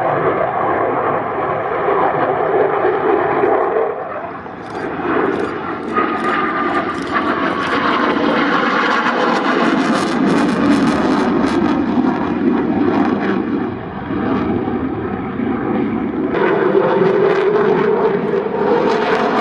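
Eurofighter Typhoon FGR4 jet, its two Eurojet EJ200 turbofans running loud and continuous through a display flight overhead. The noise swells and ebbs, dipping briefly twice.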